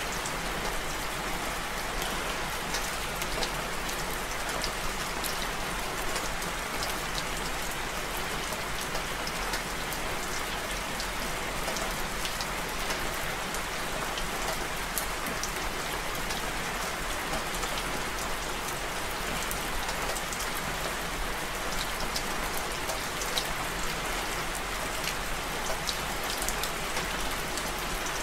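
Steady rain falling, a continuous hiss with frequent sharp ticks of individual drops striking close by.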